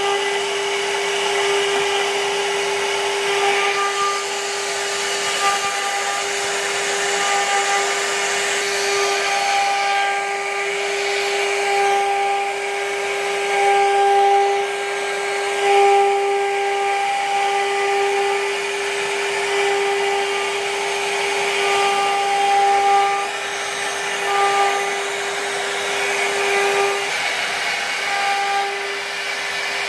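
CNC router spindle running with a steady high whine while its small bit carves a relief pattern into a wooden panel, over the hiss of wood being cut. The cutting noise swells and eases as the bit moves through the wood.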